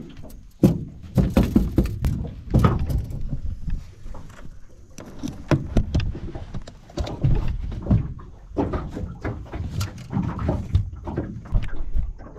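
Irregular knocks and thumps as a collapsible wire-mesh crab pot is shaken and bumped against an aluminium boat to tip a mud crab out onto the deck.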